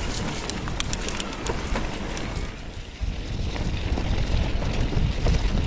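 Mountain bike tyres rolling fast over a wet gravel trail, with scattered clicks of grit and small stones. Wind buffets the camera's microphone, and its low rumble grows stronger about three seconds in.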